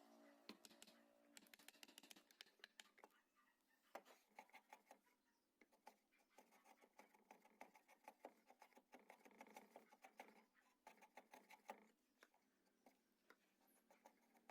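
Faint scratching and clicking of hand tools working wood, a dense run of small taps and rasps that thins out near the end.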